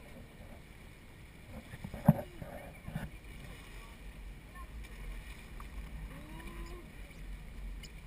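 Low rumble of a river raft drifting on moving water, with faint splashing of the current, and a sharp knock about two seconds in followed by a lighter one about a second later.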